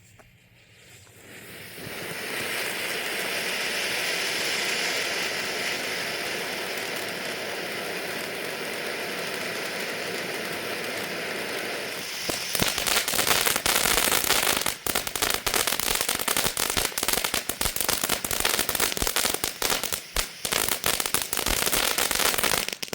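Snow cone consumer firework fountain spraying: it starts with a steady hiss that builds in about a second. Partway through it turns to a louder, dense crackling that runs until it burns out abruptly near the end.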